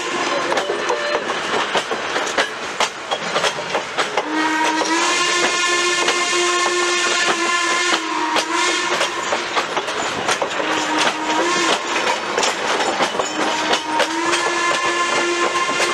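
Steam whistle of Baldwin 0-6-0 locomotive no. 58 blowing a long blast, a short blast and another long blast, the end of the grade-crossing signal, after the tail of an earlier blast. Under it, passenger car and caboose wheels click over the rail joints as the train rolls past.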